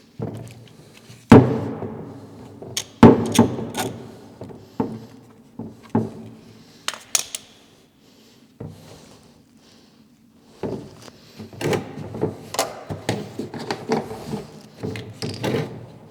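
Socket wrench working the oil drain bolt loose: a few sharp metal knocks, the loudest about a second in, then a quieter spell and a long run of rapid ratchet clicks in the second half.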